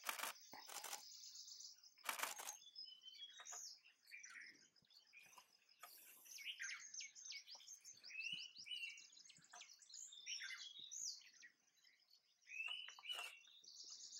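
Many small birds chirping and twittering, with a steady high insect buzz at the start and again near the end. Short bursts of sharp clicking cut in near the start, about two seconds in, and near the end.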